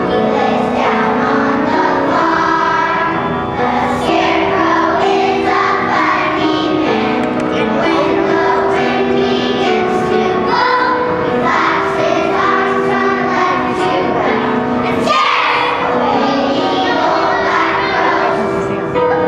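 A choir of first-grade children singing a song together.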